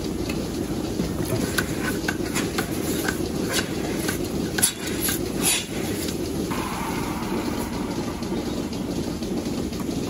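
Steady low mechanical noise of milking-parlour equipment, with a run of sharp clicks and clanks over the first six seconds as a milking cluster is handled and put onto a cow's udder. A steady higher noise joins in about six and a half seconds in.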